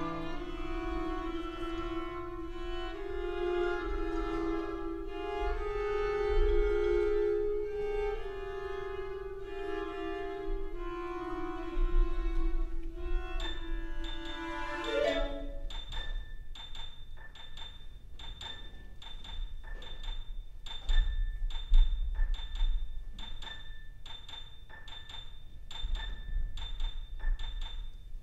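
Live contemporary chamber music from violin, cello, clarinet, piano and percussion: bowed strings hold long sustained notes, then a short sliding pitch a little past halfway leads into high, bright struck notes repeating about twice a second.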